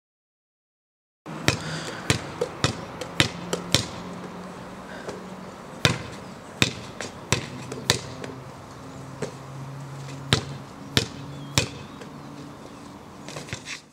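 A basketball bouncing on pavement. After about a second of silence comes a string of sharp bounces, some half a second apart and others separated by longer pauses.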